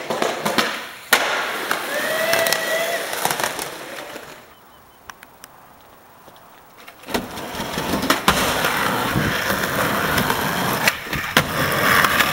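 Skateboard wheels rolling on concrete, with sharp clacks of the board striking the ground. There is a quieter stretch about halfway through, then loud rolling starts again.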